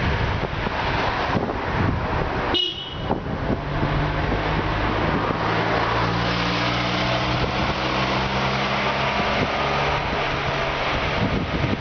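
Wind noise on the microphone of a moving bicycle, with a small truck's engine running close by as a steady low hum for several seconds in the middle. A brief high squeal sounds a few seconds in.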